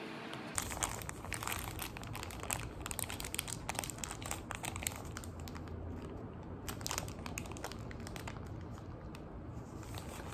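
Paper sandwich wrapper crinkling and rustling in the hands while a sandwich is handled and eaten, with many small crackles and a low steady hum underneath. It starts about half a second in.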